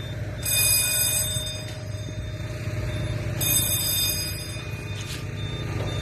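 Fire alarm sounding in two bursts of a high ringing tone, each just over a second long and about three seconds apart, over a steady low hum.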